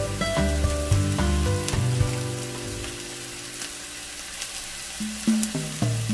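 Slice of pork sizzling and crackling in a nonstick frying pan, with small pops here and there. Background music of stepped notes plays over it, dropping away in the middle and coming back near the end.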